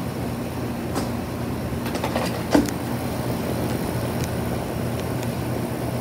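Guardian 5-ton central air conditioner condensing unit running steadily: a low compressor hum under the rush of the condenser fan, with a sharp click about two and a half seconds in.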